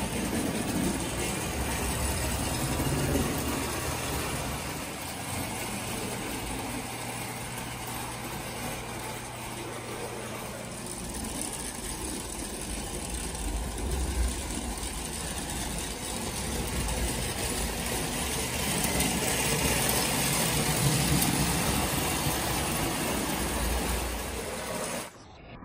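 Lionel standard gauge electric toy train running on metal track, a steady motor whir and wheel rumble. The sound cuts off suddenly near the end.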